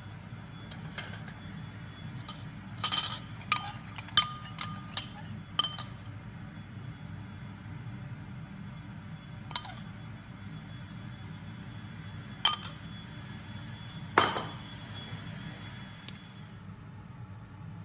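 Metal spatula and spoon clinking against a ceramic plate and a grill pan: a quick run of sharp clinks a few seconds in, then single clinks several seconds apart. A steady low hum runs underneath.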